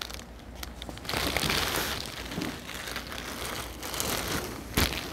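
Plastic bag crinkling and cardboard rustling as plastic-wrapped leather hides are pulled out of a long shipping box. The rustling grows louder about a second in, with one sharp snap near the end.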